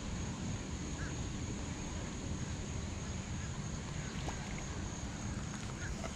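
Steady low wind rumble on the microphone, with a faint steady high hiss above it and a few tiny faint chirps.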